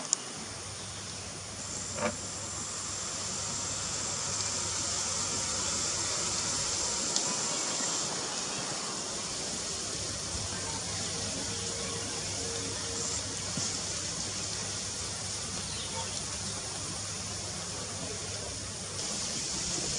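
Steady high-pitched buzzing of insects, with a single faint click about two seconds in.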